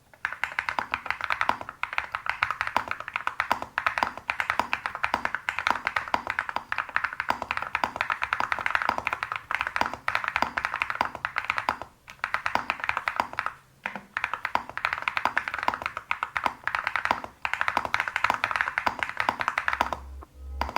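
Fast typing on a Crush 80 mechanical keyboard with factory-lubed Akko Creamy Yellow U1 linear switches in an FR4 plate. It is a dense run of keystrokes with a deep 'thonck', broken by a few short pauses. Music comes in just before the end.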